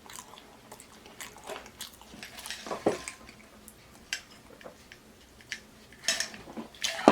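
Close-miked eating sounds: scattered mouth clicks and smacks of chewing, with a few light knocks of dishes or utensils.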